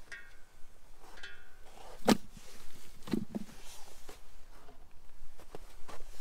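A rack of raw goat ribs set down into an enamel pot of meat: a sharp knock about two seconds in, then two softer, dull thumps. Before it, an animal gives two short high-pitched calls.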